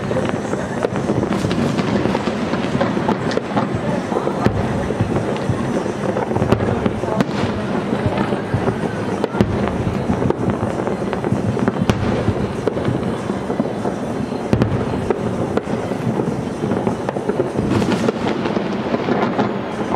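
Aerial firework shells bursting and crackling, many sharp bangs in quick succession over a continuous rumble and crackle.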